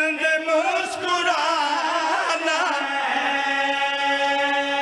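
Men's voices chanting a line of devotional verse in a melodic, wailing style, amplified through microphones: the zakir leads, with backing singers joining. The line settles into a long held note near the end.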